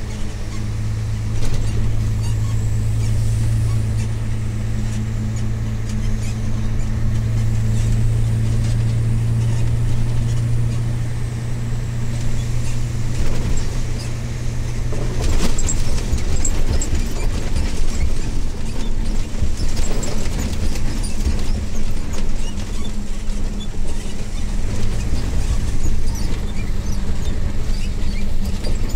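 Mercedes-Benz Actros MP1 2643 truck, with its V6 diesel, heard from inside the cab while driving: a steady engine drone with road and tyre noise. About halfway through the engine note fades back and the sound turns rougher, with short knocks and rattles from the cab and road.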